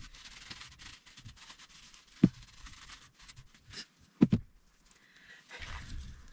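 Cloth rubbing over the steel frame of a disassembled Astra .38 revolver, with sharp knocks as the metal parts are handled on the bench: one about two seconds in and a quick pair a little after four seconds.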